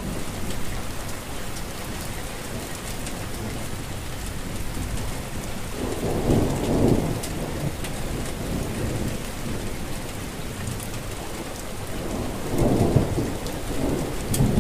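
Steady rain falling, with two rolls of thunder: one about six seconds in and another near the end.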